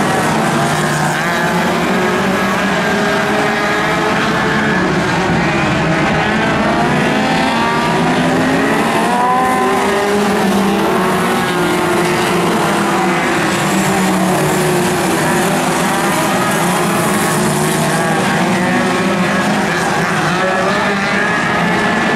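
Several speedway midget race car engines running together on a dirt oval, their pitches rising and falling as the cars go through the turns.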